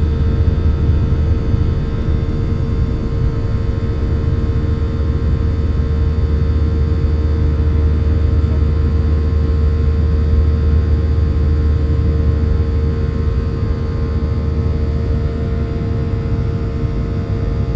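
Jet airliner cabin noise in the climb after takeoff: a steady, loud low engine rumble with a constant hum and fainter steady tones over it, heard from inside the cabin.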